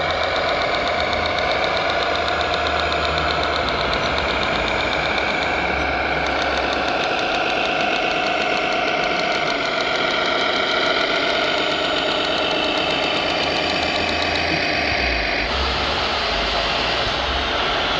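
Scale RC construction trucks running, an engine-like mechanical sound with a wavering whine and a fine regular pulse. The sound changes about fifteen and a half seconds in.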